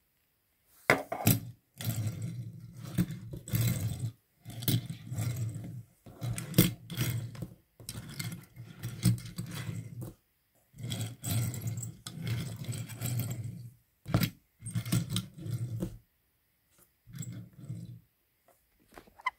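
Toy die-cast Hot Wheels Dodge van rolling back and forth across a tabletop in repeated pushes of one to two seconds, its small wheels giving a low rumbling scrape, with a few sharp clicks in between.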